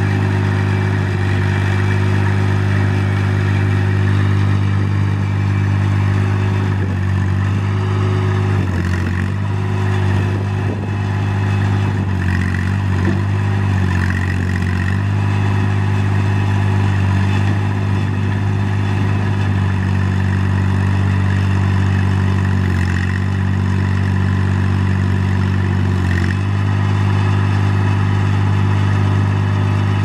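Isuzu three-cylinder diesel engine of an Almand TLB-35D backhoe running steadily, with a few brief dips in its note.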